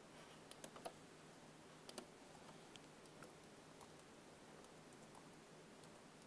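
Faint computer keyboard typing: a few irregular key clicks, the clearest in the first two seconds, over near silence with a faint steady hum.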